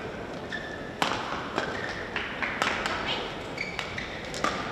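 Badminton court sounds between points: scattered sharp taps and thuds, with a few short high squeaks of court shoes on the court mat, in a reverberant hall.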